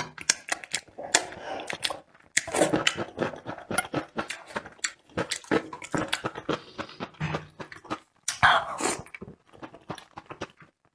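Close-miked eating: chewing, lip smacks and slurping on food, in dense, irregular clicks and short wet bursts.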